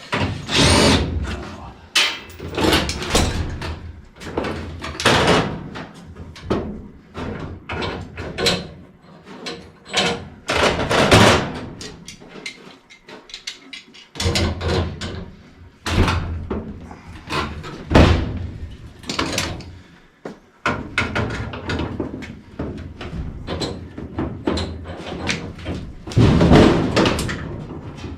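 Irregular bangs, clunks and clatter of sheet-metal furnace parts and hand tools being handled while a gas furnace is taken apart, with a few sharp loud knocks.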